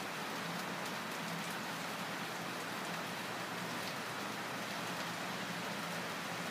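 Steady, even hiss with faint scattered high ticks, unchanging throughout.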